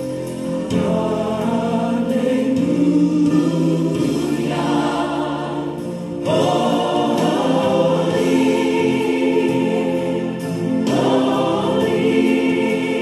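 Gospel worship music: a choir singing over sustained chords.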